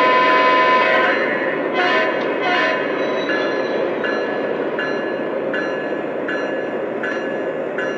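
Lionel Legacy ES44 model diesel locomotive's onboard sound system: the horn holds a chord until about a second in and gives two short blasts, then the electronic bell chime rings steadily, about once every 0.7 seconds. Underneath is a steady rumble of the running train.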